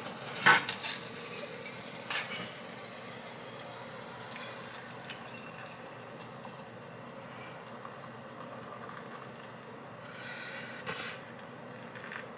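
A sharp clink of dishes about half a second in, then a steady pour of hot water from a stainless-steel kettle into a cup, with a couple of light knocks near the end.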